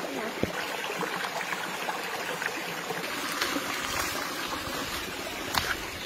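Shallow forest stream trickling and rushing over rocks, a steady hiss with a few sharp clicks. About two-thirds of the way through, a low rumble joins in.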